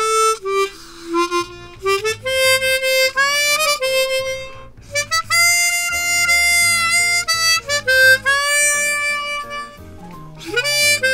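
Hohner Xpression 12-hole chromatic harmonica played in short phrases of separate notes, stepping up and down in pitch with brief pauses between phrases.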